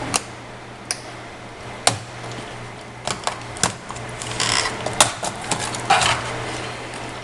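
Flathead screwdriver prying up an HP 2000 laptop keyboard: irregular sharp plastic clicks as its retaining clips let go, with a few short scrapes of metal on plastic, the loudest clicks about two and five seconds in.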